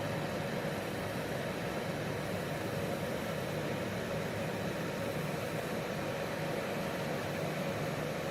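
U ULTTY CR021 bladeless tower fan running: a steady rush of air with an even motor hum.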